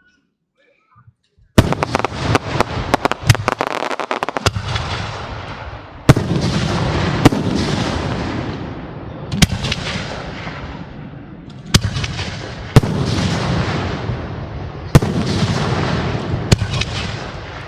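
Aerial fireworks shells firing and bursting. After about a second and a half of silence, a rapid crackling volley of sharp reports runs for about three seconds. It is followed by single loud booms every one to two seconds, each trailing off in a long rumbling echo.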